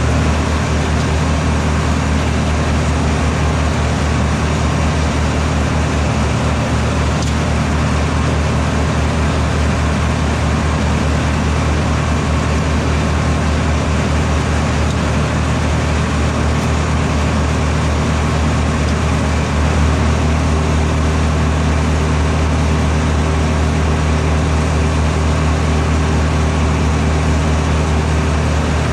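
Farm tractor's diesel engine running steadily under load, a loud, even drone; the engine note steps up slightly about two-thirds of the way through.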